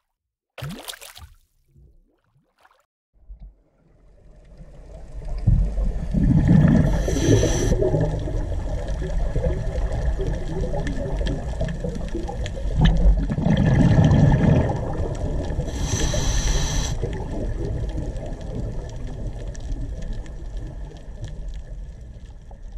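Underwater recording of a scuba diver breathing. Exhaled bubbles rumble and gurgle, swelling twice, and two hissing breaths through the regulator come about nine seconds apart. The sound starts about four seconds in and fades near the end.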